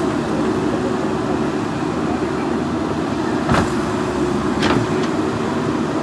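JCB 3DX backhoe loader's diesel engine running steadily under load as the backhoe arm works. Two sharp knocks come about a second apart, a little past the middle.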